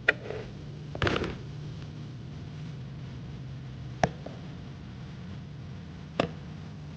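Plastic toy animal figurines being handled and set down: four sharp knocks, the second a short clatter, over a steady low hum.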